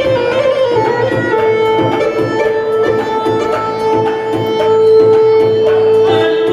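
Iraqi dabke wedding music: a lead instrument holds one long note for several seconds over a steady, even drum beat.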